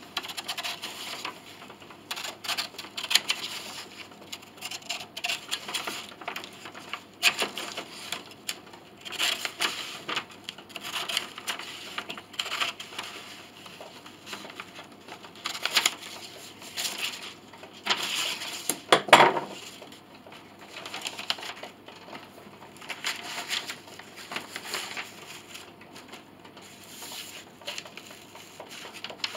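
A piece of wood being cut by hand: a run of uneven scraping saw strokes, roughly one a second, with one sharp knock about two-thirds of the way through.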